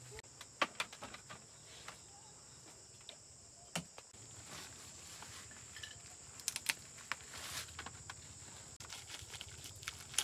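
Steady high-pitched insect buzz, with scattered light taps and knocks, some in quick pairs.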